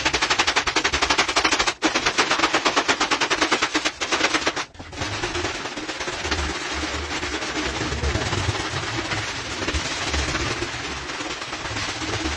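Stiff long-handled brush scrubbing a shaggy rug in rapid, even back-and-forth strokes, broken by two brief pauses. After about five seconds it gives way to a steadier wet rustling of hands rubbing soapy lather into the pile.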